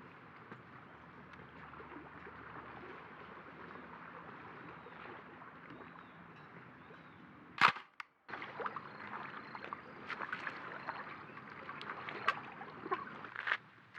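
Steady outdoor background hiss, broken about halfway by a single loud, sharp click. A brief dropout follows, then scattered small knocks over the background.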